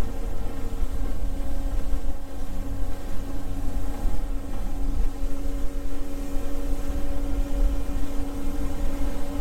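A boat's 50 hp outboard motor running steadily at cruising speed, an even drone over a heavy low rumble.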